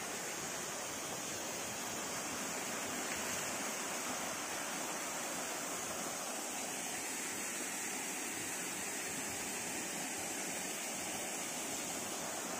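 Steady rush of running mountain water, a stream or small waterfall, with no change in level.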